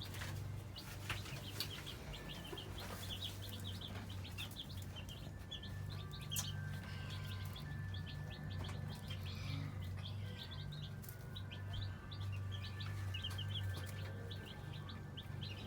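A group of Sapphire Gem baby chicks peeping, with many short, high peeps scattered throughout over a steady low hum.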